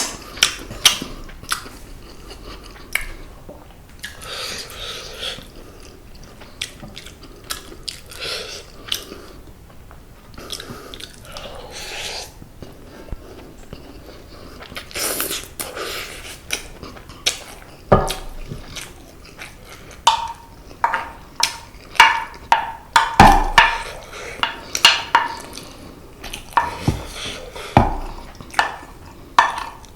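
Close-miked chewing of seasoned semi-dried pollock and rice, with wet mouth sounds and many sharp clicks and taps that grow denser and louder in the second half.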